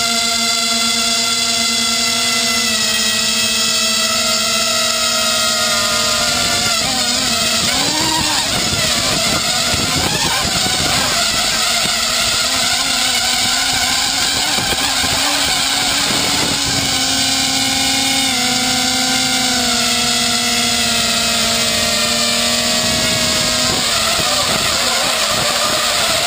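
The four brushless motors and propellers of an FPV250 quadcopter whining in flight, picked up by the camera on the drone itself. The whine holds one pitch at first, then wavers and shifts in pitch for about ten seconds as the motors change speed, then steadies again and steps down slightly in pitch.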